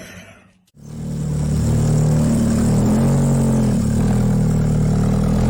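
A loud, steady, low-pitched engine-like hum, its pitch dipping and rising slightly a few times; it starts about a second in.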